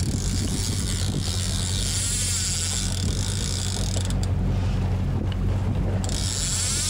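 Boat engine running steadily at trolling speed, with a hiss of wind and water over it that drops away about four seconds in and returns near the end.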